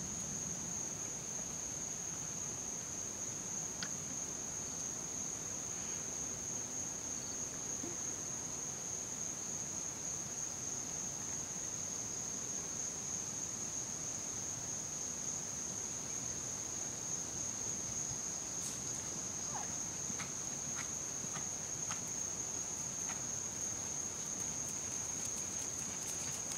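Insects droning steadily on one high pitch, with a few faint ticks in the second half.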